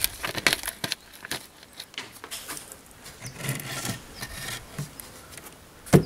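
Gravel and loose stones crunching, scraping and clicking as hands work them around a plastic drain pipe set into a gravel bed, with a quick run of sharp clicks in the first second or so and one louder knock at the very end.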